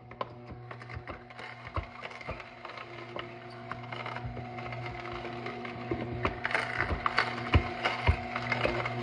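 Horizontal auger (masticating) juicer running: a steady motor hum under irregular crackling and crunching as carrots and fruit are pushed down the chute with the plunger and crushed by the auger. It grows louder toward the end.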